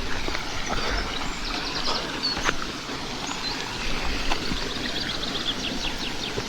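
Steady rushing of a waterfall, with gusts of wind buffeting the microphone and a few light knocks. A small bird sings a quick high trill twice.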